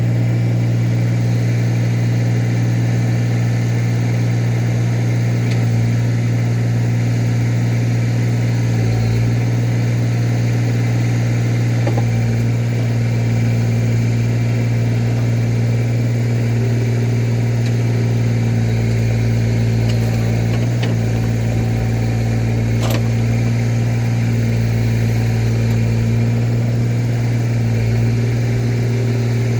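Tractor engine running at a steady speed, with a few faint clicks over it.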